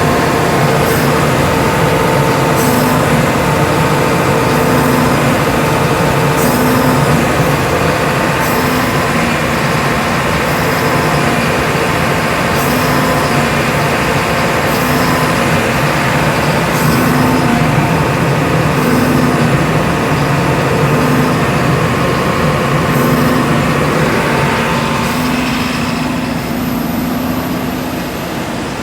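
JCB 220XLC tracked excavator running steadily, with a lower pulse coming back about every two seconds. It eases off a little near the end.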